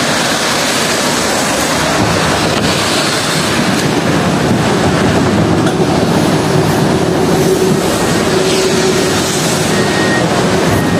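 City tram noise: the loud, steady rumble of a low-floor tram at the stop and on board, with a faint steady whine joining about halfway through.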